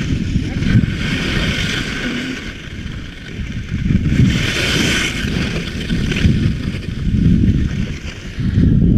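Wind buffeting a helmet-mounted GoPro microphone during a fast ski run, over skis scraping across icy, hard-packed snow, with the scraping hiss swelling twice as the skis carve turns.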